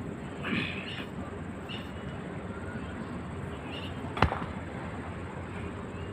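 A large stone block thrown down onto the ground, landing with one sharp impact about four seconds in, over a steady outdoor background with a few faint bird chirps.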